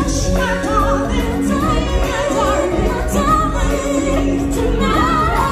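Stage-show music: several voices singing wavering, vibrato-laden lines over held low accompaniment notes.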